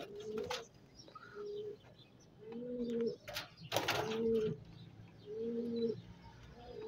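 Domestic fancy pigeons cooing, a low coo repeated about six times, roughly one every second and a half. A burst of wing flapping, the loudest sound, comes a little past the middle.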